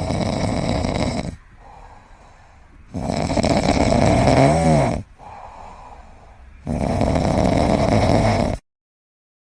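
Snoring: three long, loud snores about three seconds apart, with quieter breaths between them, cut off abruptly near the end.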